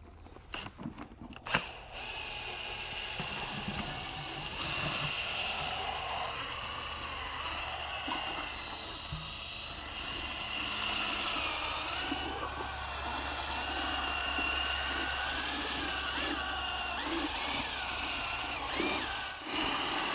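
Handheld drill with a mixing paddle churning filler into MMA resin in a plastic bucket. It runs steadily from about two seconds in, after a sharp knock, with a whine that wavers in pitch as the speed changes, and dips briefly near the end.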